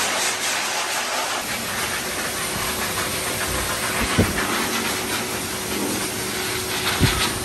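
Hose-fed high-velocity pet dryer blowing steadily on a Rottweiler's coat, a loud even hiss. Two short low thumps stand out, about four seconds in and again near the end.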